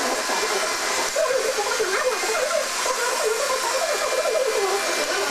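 iRobot Roomba 530 robot vacuum running, with a steady whirring hiss of its vacuum motor and brushes and a pitch that wavers up and down.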